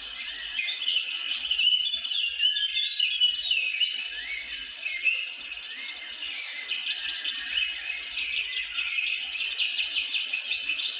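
Dense chorus of many birds chirping together, a steady mass of short, overlapping rising chirps.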